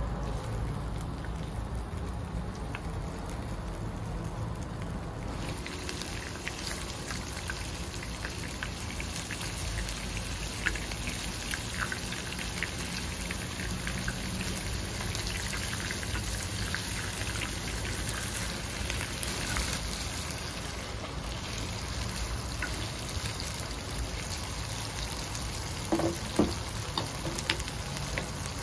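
Koofte meatballs frying in hot oil in a pan, a steady sizzle with dense crackling that grows louder about five seconds in. A few sharp knocks come near the end.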